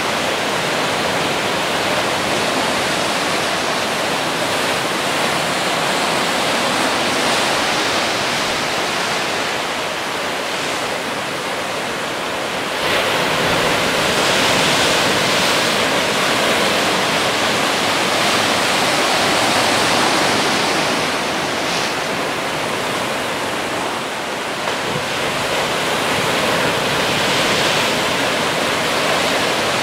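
Ocean surf breaking on rocks and washing through a rocky shoreline: a continuous rushing roar of water, growing louder as the bigger waves come in.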